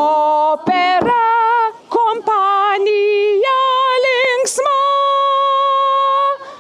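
A woman's solo singing voice in an operatic style with vibrato. She sings a short run of notes, then holds one long high note near the end.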